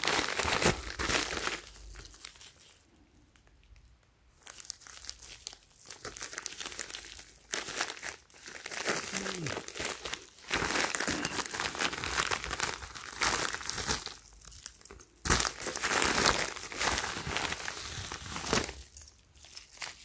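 Crinkling and rustling of a white poly bubble mailer as it is handled and cut open with scissors, in irregular bursts with a quiet pause about two seconds in.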